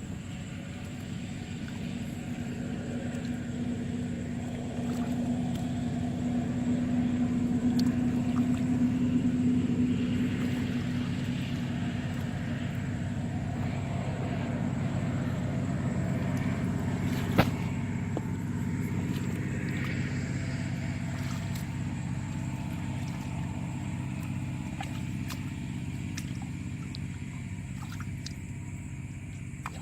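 An engine running steadily with a low hum, swelling louder about a third of the way in and easing off again, with one sharp click a little past halfway.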